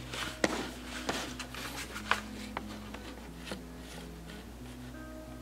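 A resealable plastic zip-top pouch crinkling and crackling as it is picked up and handled, with several sharp crackles in the first three and a half seconds, over soft background music.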